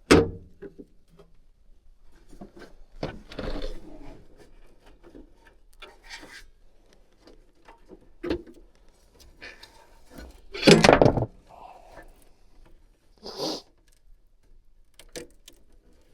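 Hands working close up on electrical wiring and tape: intermittent rustling, scraping and clicks, in several separate bursts, the loudest about eleven seconds in.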